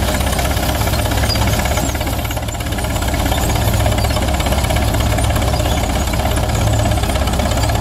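Holt crawler tractor's engine running steadily under load while pulling an eight-bottom plow, with a rapid, even beat of exhaust pulses.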